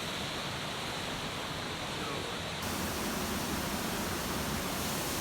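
Steady rush of the Gljúfrabúi waterfall, a dense even hiss of falling water. About two and a half seconds in it turns brighter and a little louder.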